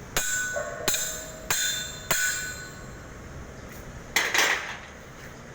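Four sharp metal-on-metal strikes, each ringing briefly, as cylinder valve parts are tightened. A short harsh rattle follows near the end.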